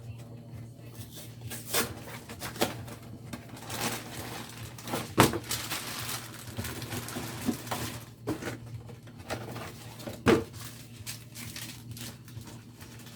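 Food packages and containers being handled and shifted in a freezer: plastic rustling and crinkling with scattered knocks, the two loudest about five and ten seconds in, over a steady low hum.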